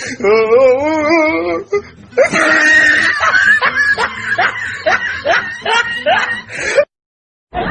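Laughter sound effects: a short, wavering laugh, then after a brief pause a longer run of rhythmic 'ha-ha' laughter at about three pulses a second that cuts off abruptly near the end.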